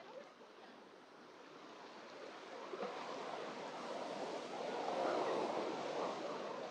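Small waves breaking and washing up a sand beach: a soft rush of surf that swells to its loudest about two-thirds of the way through, then eases slightly.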